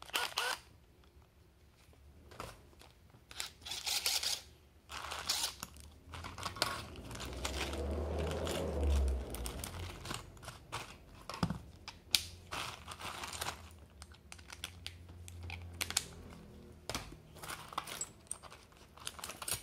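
Hands handling hand tools and a tool belt on a workbench: scattered clicks and knocks of metal tools and bits set down and picked up, with the rustle of nylon pouches and a plastic bag. A low rumble swells and fades about halfway through.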